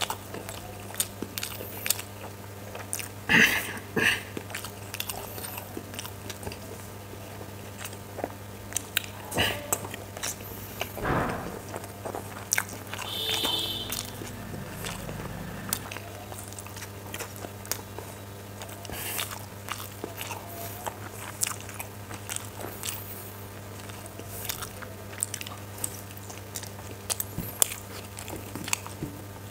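Close-up eating sounds of steamed chicken momos dipped in spicy chutney, then chowmein: wet mouth smacks and clicks with a few louder bites and chews, over a steady low electrical hum.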